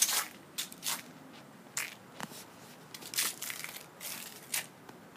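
Footsteps on dry leaves and grit over a concrete patio: a run of about ten short, unevenly spaced scuffs.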